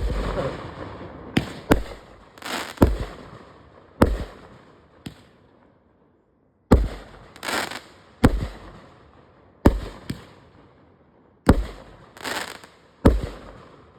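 Consumer firework cake firing a run of shots: about a dozen sharp bangs at uneven spacing, some followed by a brief rushing burst, with a short pause about halfway through.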